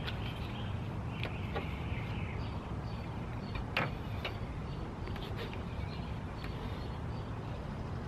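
Steady low background rumble with faint bird calls, and a single sharp tap about four seconds in.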